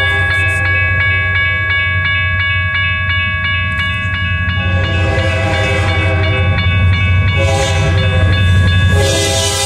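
Grade-crossing bell ringing rapidly and steadily over the low rumble of an approaching BNSF diesel locomotive. From about halfway through, the locomotive's horn sounds: a long blast, then a shorter one, then a third starting near the end.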